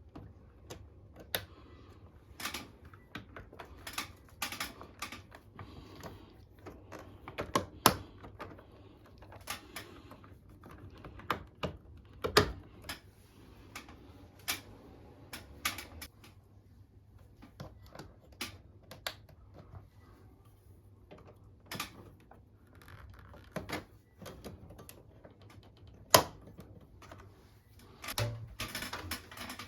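Irregular sharp clicks and knocks of plastic parts being handled on a wall-mounted air conditioner, two of them much louder than the rest, with a brief hiss near the end.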